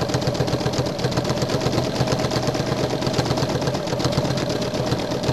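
Domestic sewing machine stitching at a steady fast speed for free-motion quilting, its needle and spring-loaded free-motion foot making a rapid, even run of strokes.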